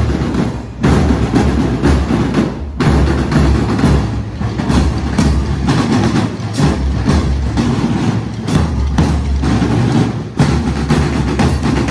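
Scout drum corps marching and playing snare and bass drums together in a steady beat.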